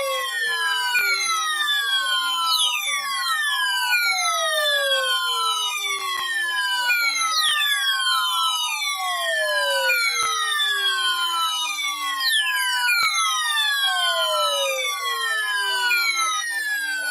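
Warning siren wailing: the pitch jumps up and slides slowly down over and over, about every two and a half seconds, with several sweeps overlapping as if more than one siren or an echo is heard.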